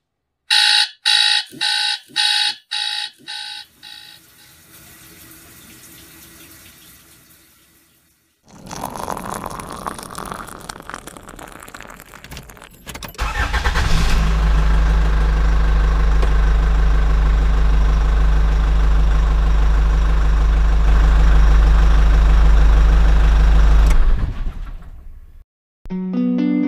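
A digital alarm clock beeps about six times in quick succession. Then coffee pours into a cup with a rushing splash. About halfway through, a car engine starts and runs with a loud, steady low hum for around ten seconds before it fades out.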